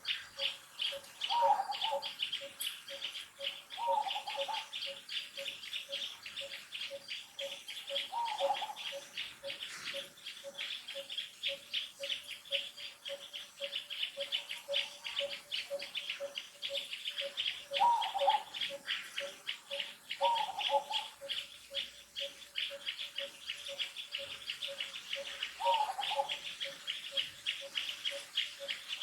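Outdoor insect and bird chorus: a dense, fast high-pitched trill runs throughout under a steady low note repeating a few times a second, with six short calls at intervals.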